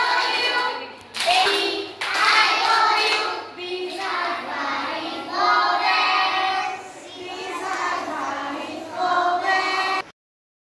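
A class of young children singing together, with a woman's voice among them, cutting off abruptly near the end.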